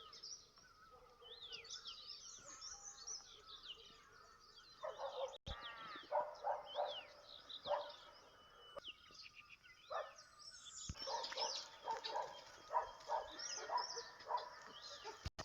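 Several birds chirping and calling over one another in quick, high, sweeping notes. From about five seconds in, and again after ten seconds, runs of a repeated, lower call join in, several notes a second.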